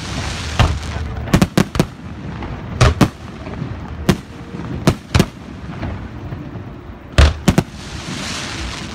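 Aerial firework shells bursting overhead: about a dozen sharp bangs, several coming in quick clusters of two or three, over a steady hiss.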